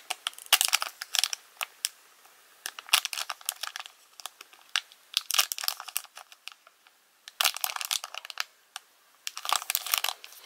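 Crinkling and sharp clicks in several short clusters, from a foil booster pack wrapper and trading cards being handled and flipped through.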